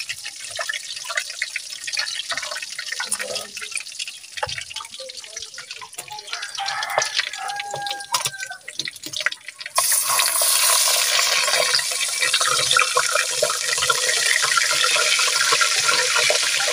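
Fish frying in hot oil in a metal wok: a soft crackle and spatter at first, then about ten seconds in a whole fish goes into the oil and a loud, steady sizzle starts.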